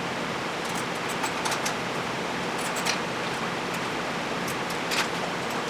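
Steady background hiss with a few faint, scattered clicks of hand tools working the 8 mm bolts of a motorcycle's countershaft sprocket cover.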